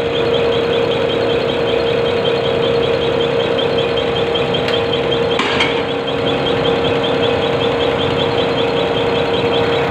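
Common-rail injector test bench running a Bosch diesel injector in a high-pressure delivery test: a steady motor and pump hum with the injector ticking rapidly and evenly as it fires. A short hiss comes about halfway through.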